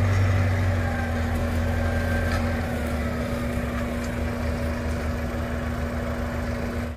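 Kubota farm tractor's diesel engine running steadily, its low hum gradually fading over the first few seconds as the tractor moves off.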